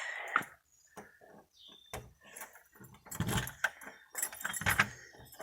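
Light metallic clicks and jingling at a Kwikset door lock as it is worked open, with a few louder knocks and rustles about three and four and a half seconds in.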